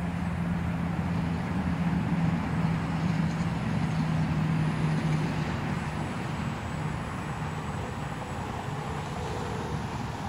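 Electric motor and propeller of an E-Flite Timber radio-control plane droning overhead as a steady hum over a broad hiss; the hum weakens about halfway through.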